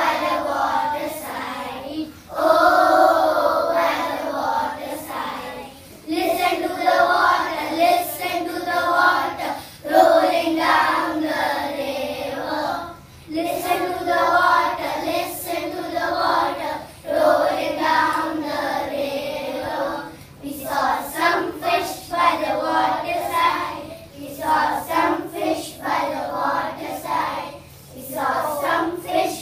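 A group of young children singing together in unison, phrase after phrase with short breaks between.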